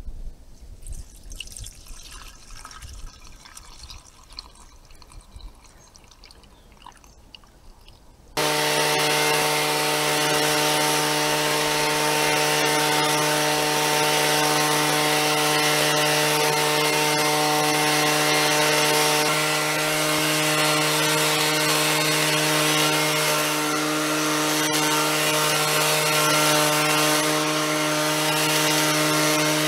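Stihl SH 56 C two-stroke blower running steadily, blowing soil and leaf debris off a border edge. Before it, about eight seconds of quiet handling noises while the fuel tank is filled through a funnel. The engine comes in suddenly about eight seconds in.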